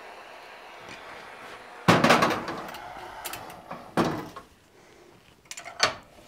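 Oxy-acetylene torch flame hissing steadily, then shut off with a loud sudden burst about two seconds in that dies away over a second. A second sharp knock follows about four seconds in, and light metallic clinks of blacksmith's tongs on the steel hook come near the end.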